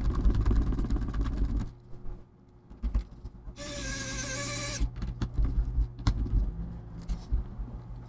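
Handling noise and small clicks of a hinge screw being driven by hand into a laptop's metal hinge insert, then, about halfway through, a short squeaky tone lasting about a second, then a few light clicks.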